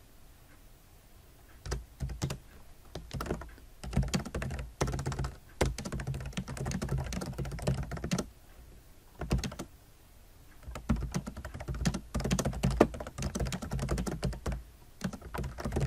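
Typing on a computer keyboard: runs of rapid key clicks that begin about two seconds in, with a few short pauses.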